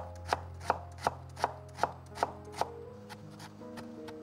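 Chef's knife finely chopping carrot on a wooden cutting board: sharp, evenly spaced strikes about three a second. The strikes become fainter in the last second and a half.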